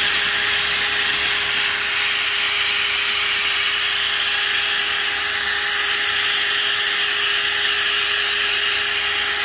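DeWalt cordless drill spinning an abrasive scrubbing pad against a wet tile floor with dish soap, scrubbing off dried grout haze. A steady motor whine over a loud, even scrubbing hiss.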